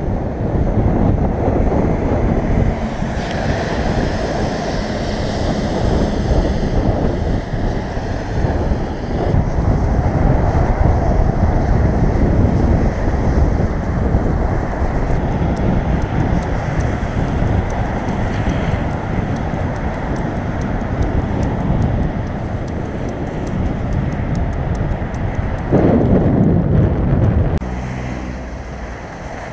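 Wind buffeting the camera microphone as a loud, steady rush, mixed with road traffic. It eases off near the end.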